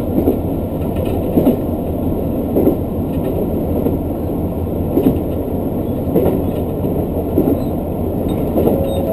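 Inside a diesel local train carriage running along the line: a steady rumble, with the wheels clacking over rail joints in pairs about once a second. A steady tone starts near the end.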